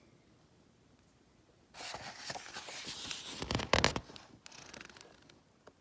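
Paper pages of a picture book being turned and handled: rustling and flapping starting about two seconds in and lasting about three seconds, with a few louder sharp flaps a little past the middle.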